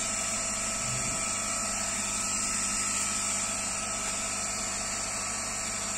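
Steady hum with a constant high-pitched whine from the diode laser engraver's cooling fans and equipment running while the laser is idle, with a faint low bump about a second in as the plate is handled.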